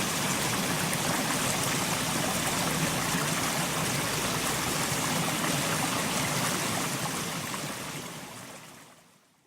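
Mountain stream flowing steadily, fading out over the last two seconds or so.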